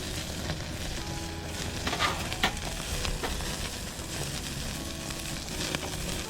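Food sizzling and spitting in a hot pan over the fire, with occasional sharp pops, the loudest about two seconds in.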